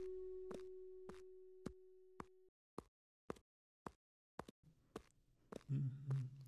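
Faint footsteps on a hard floor at an even walking pace, about two steps a second, becoming uneven and stopping near the end. Over the first couple of seconds a held, ringing musical tone fades out.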